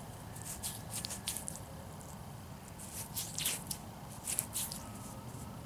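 Damp soil squishing and scratching as fingers rub dirt off a freshly dug coin, in three short clusters of scratchy rubs.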